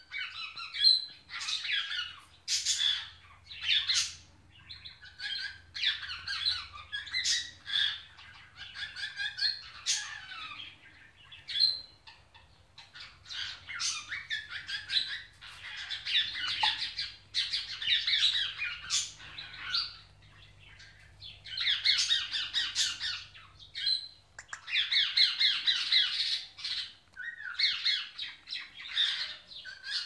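Pet parrots, an Indian ringneck and an African grey, chattering and squawking in quick bursts with rapid trilled runs of notes, the sounds of the ringneck greeting the grey.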